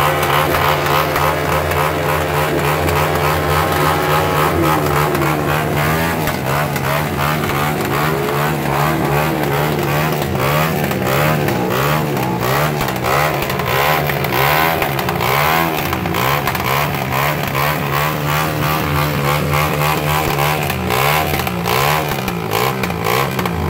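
Motorcycle engines running and revving up and down over and over, over a steady engine drone.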